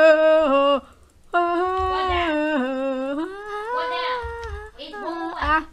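A voice humming a wordless tune in long held notes that step up and down in pitch, with a short break about a second in.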